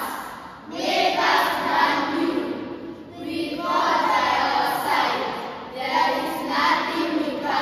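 Children's choir voices in unison, delivering three phrases of about two seconds each with short breaks between them.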